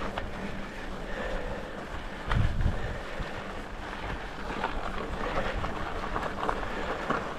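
Mountain bike rolling over a rocky dirt trail, with wind rushing across the microphone, scattered clicks and rattles from the bike, and a heavier thump about two seconds in.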